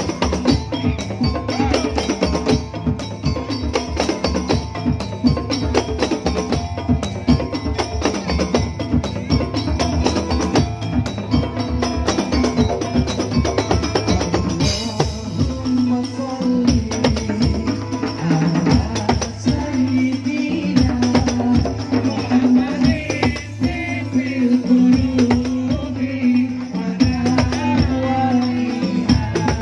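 East Javanese patrol percussion ensemble playing live: hand drums and wooden percussion in a dense, fast, even rhythm, with a keyboard holding sustained notes underneath.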